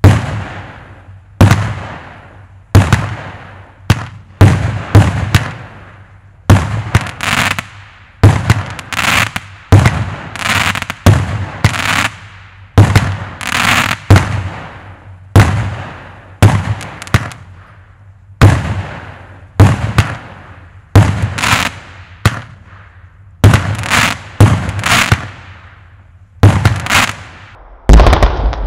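A 25-shot fireworks cake firing shot after shot, roughly one every one to one and a half seconds: each a sharp report that trails off, some followed by a hissing, crackling tail from the gold stars.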